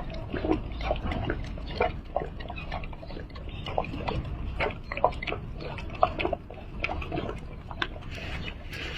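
A pet making rapid, irregular wet smacking and snuffling sounds, several a second.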